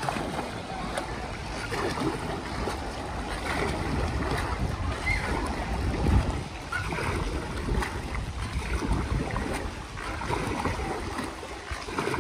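Dragon boat paddle strokes in still pool water: the blade repeatedly catching and pulling through the water, with splashing and churning on each stroke.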